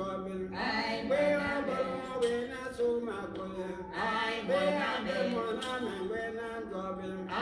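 Male singing in a slow, chant-like style, held notes gliding between pitches over a steady low sustained note.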